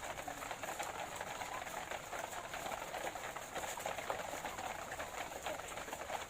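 A flock of many laying hens clucking at once in a continuous, dense chatter, with scattered short clicks through it.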